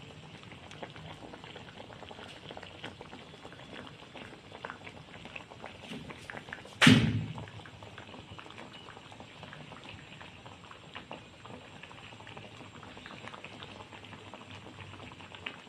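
Coconut milk with squash and pechay simmering in a pot, bubbling with a steady fine crackle of small pops. A single loud knock sounds about halfway through.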